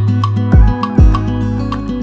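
Background music with a steady beat, with two deep thumps about half a second apart in the first half.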